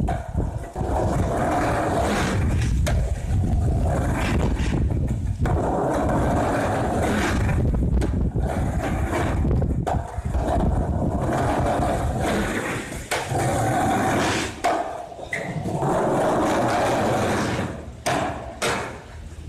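Skateboard wheels rolling over tiled paving and a concrete ramp, with several sharp clacks of the board hitting the ground.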